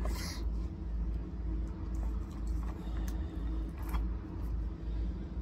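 Steady low mechanical hum, like an engine or motor running, with a few faint clicks.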